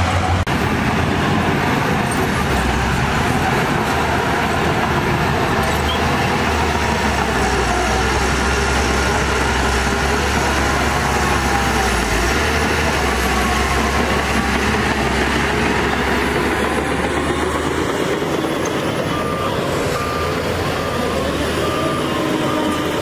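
Heavy diesel earthmoving machinery running under load, with a low engine note that shifts a few times. A reversing alarm beeps steadily near the end.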